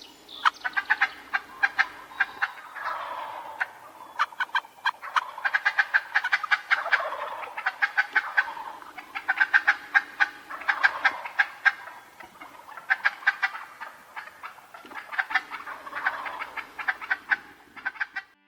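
Wild turkey toms gobbling repeatedly from the roost: a long string of rattling gobbles, one after another, every second or two.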